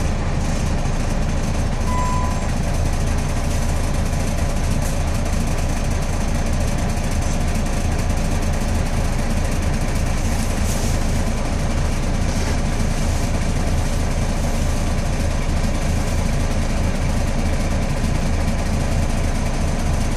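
Scania L113CRL bus's rear-mounted 11-litre six-cylinder diesel engine running steadily, heard from inside the passenger saloon as a constant low drone.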